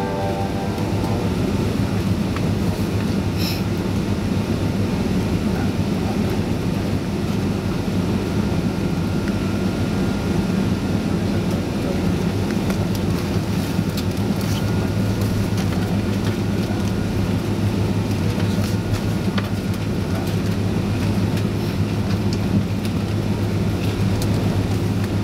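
Cabin noise inside a Boeing 767-336 with its Rolls-Royce RB211 engines running at low power on the ground before takeoff: a steady low drone with a deep hum, and a few faint clicks and rattles.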